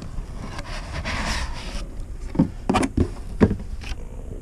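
Cardboard box lid sliding off with a rubbing, scraping noise, followed by several sharp knocks and taps as the cardboard packaging inside is handled.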